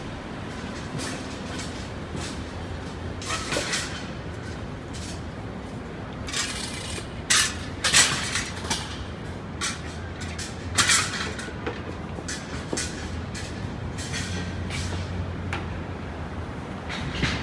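City street traffic: a steady low rumble of passing vehicles, broken by a series of short, sharp clattering bursts, the loudest about seven to eleven seconds in.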